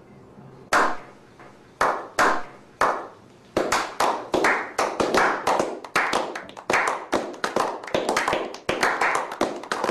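A slow clap by a small group of people: a few single hand claps spaced about a second apart, then from about three and a half seconds in, quicker overlapping claps that build into applause.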